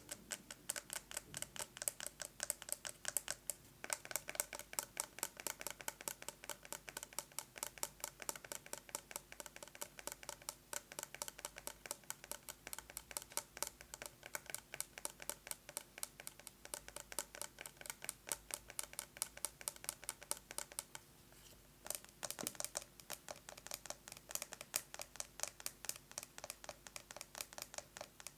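Fingernails tapping fast on a plastic box with a metal lid: a rapid, steady stream of sharp clicks, with a brief break about three quarters of the way through.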